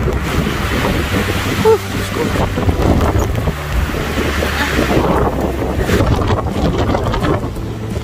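Blizzard wind gusting hard against the microphone: a loud, uneven rushing noise that swells and eases.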